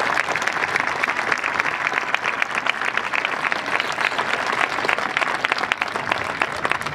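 Large crowd applauding, many hands clapping at once in a steady, dense patter.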